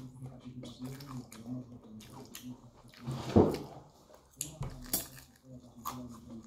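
Close-up sounds of a person chewing and biting food with the mouth, wet clicks and smacks, with one louder bite about three and a half seconds in. A low hum runs underneath.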